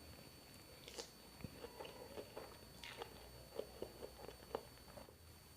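Faint close-miked eating sounds: a person biting and chewing food, heard as irregular small clicks and crunches.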